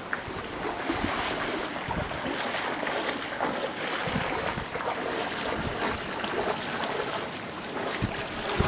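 Wind buffeting the microphone over small waves lapping in shallow water, a steady rushing with irregular gusts.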